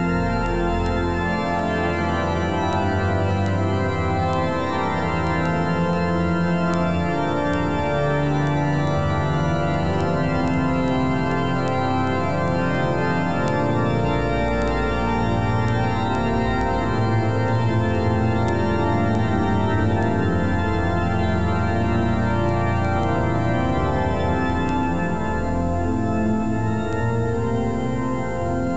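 Organ music: full chords of long held notes over a deep bass line that shifts every few seconds, at a steady level.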